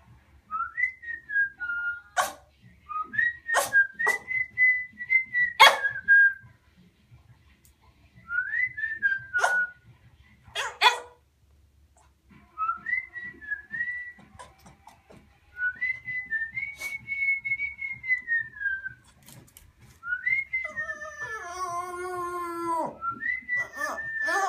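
A person whistling a tune in short, gliding phrases, with a small dog howling along in a wavering, falling wail near the end. A few short sharp sounds cut in during the first half.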